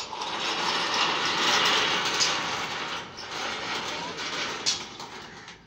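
Steel panel frame of a solar-panel trolley swinging round on its pivot post: a long, loud, noisy scrape that starts abruptly, slackens briefly about halfway and carries on, with a sharp knock near the end.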